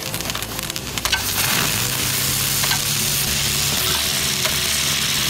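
A lit firework hissing steadily as it sprays sparks, crackling at first and settling into a continuous hiss about a second in.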